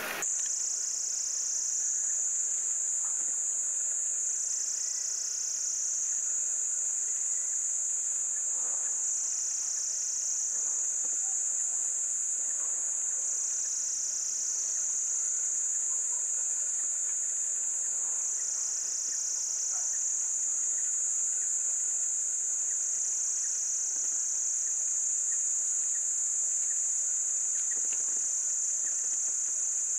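Steady high-pitched insect chorus that swells and eases slightly every few seconds.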